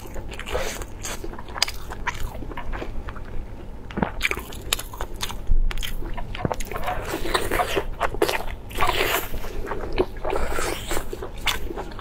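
Close-miked biting and chewing of a lamb-intestine sausage stuffed with meat: crisp bites and wet mouth sounds, repeated irregularly.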